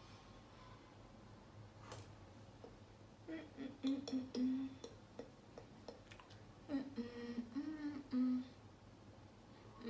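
A woman humming a tune in two short phrases, one about three seconds in and another around seven seconds, with a single sharp click near two seconds.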